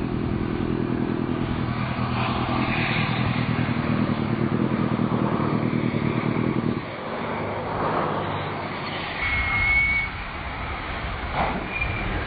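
GWR Castle-class four-cylinder 4-6-0 steam locomotive working a passenger train past, with a rapid, steady exhaust beat over a heavy rumble. About seven seconds in the beat drops away as the engine moves off, leaving the quieter rumble of the coaches rolling by.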